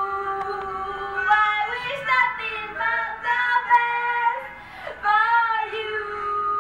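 A woman singing a slow ballad with long held notes over soft backing music.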